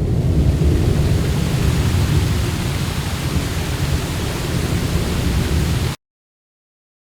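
Loud, steady rumbling noise with a hiss over it, heaviest in the deep bass, cutting off abruptly about six seconds in.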